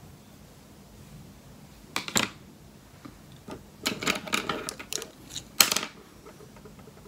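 Sharp clicks and clatter of small makeup tools being handled, set down and picked up. One burst comes about two seconds in, a run of clicks follows from about four to five seconds, and a single loud click comes near the end.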